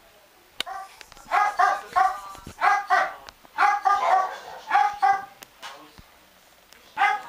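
A dog barking repeatedly in high-pitched barks, often two in quick succession, for about four seconds, then once more near the end.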